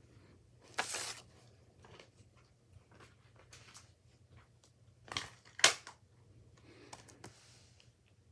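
A Blu-ray case and its paper insert being handled: a few short rustles and light knocks, one about a second in and a pair around five seconds in, the last of them the loudest, with small ticks between.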